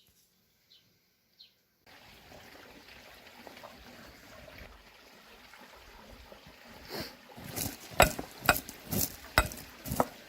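A soft steady trickling or pouring sound begins about two seconds in. In the last few seconds it gives way to quick, loud, repeated clinks of a utensil against a bowl, as in whisking batter ingredients.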